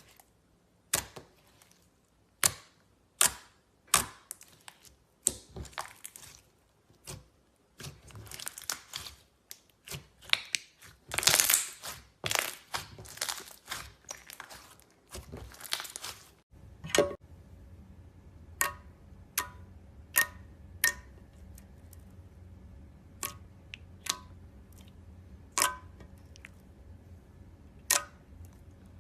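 Slime being worked by hand: a run of sharp pops and sticky crackles, densest in the middle. Then, after a cut, single clicking pops about once a second over a faint steady hum.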